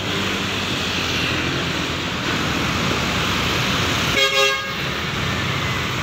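Karya Bintang Mandiri 'Joker' coach bus pulling out with its diesel engine running, and one short horn toot about four seconds in.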